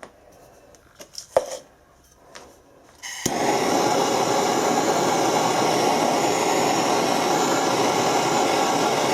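A few light clinks and taps of metal parts being handled. Then, about three seconds in, a click and a propane torch lights and burns with a loud, steady rushing hiss, heating a brass and stainless steel joint for silver soldering.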